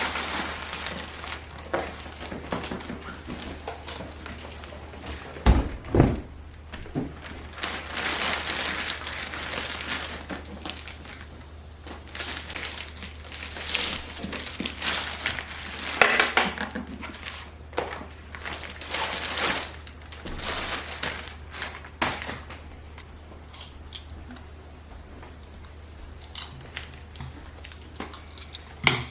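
A cardboard box and its packaging being opened and handled: irregular crinkling, rustling and knocks, with two loud thumps about six seconds in.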